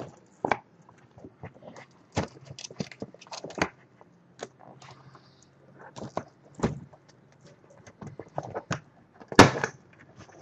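A collapsible umbrella-style softbox being forced open by hand. Its silver reflective fabric rustles and its ribs and hub click and snap in irregular bursts, with the loudest snap about nine and a half seconds in.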